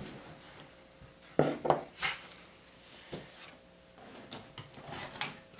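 A few light knocks and clinks of a small bowl and dishware being handled and set down on a kitchen countertop, the two loudest about a second and a half and two seconds in.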